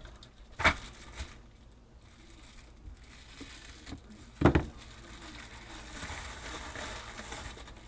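Objects being handled and set down on a desk: two sharp knocks, about a second in and about four and a half seconds in, with soft rustling like packaging being handled in between.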